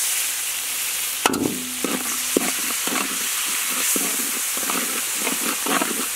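Sauce and seasonings sizzling in a hot metal wok while a metal spatula stirs them: one sharp knock of the spatula on the wok about a second in, then repeated scraping strokes against the wok with a steady sizzle underneath.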